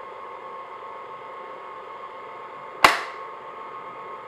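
Stand mixer motor running at low speed with a steady whine as its flat beater works flour into shortbread dough. About three seconds in, a single sharp knock.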